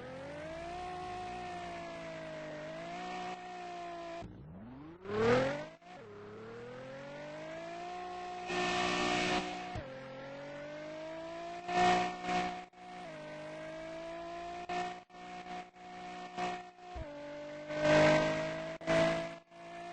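Car engine revving while in neutral, its pitch rising, holding high and dropping back several times. Short loud rushing bursts break in a few times over the engine note, which are the neutral noise the owner is asking about.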